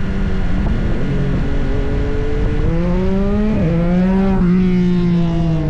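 Motorcycle engine under throttle: its pitch climbs, drops sharply twice, then falls away near the end.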